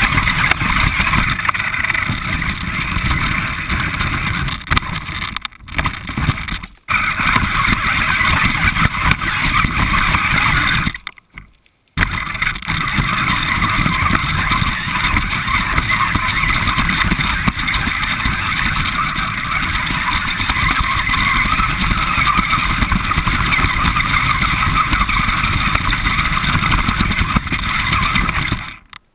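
Radio-controlled car driving, heard from a camera mounted on the car itself: a steady whirring motor and wheel-and-ground noise. The sound cuts out briefly a few times, once for about a second.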